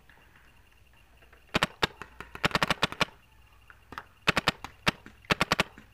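Paintball marker firing in quick strings of sharp shots, several bursts of two to eight shots starting about a second and a half in.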